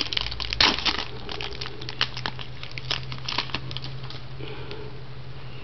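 Trading cards and a foil pack wrapper being handled: crinkling and short sharp clicks, busy for the first few seconds and then sparser.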